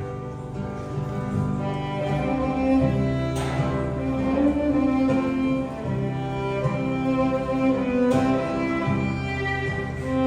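Bowed string music, violin and cello, in long held notes.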